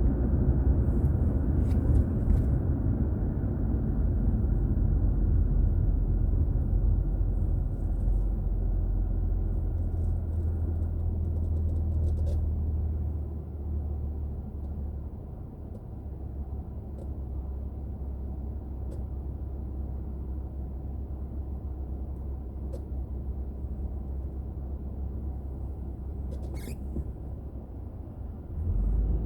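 Low rumble of a car driving, heard from a dashboard camera inside the car. It eases to a quieter steady hum about halfway through, then swells again near the end.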